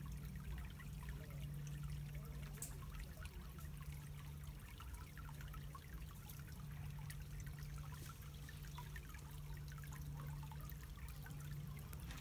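Shallow stream trickling over cobbles and gravel, a steady faint babble of small splashes, with a steady low hum underneath.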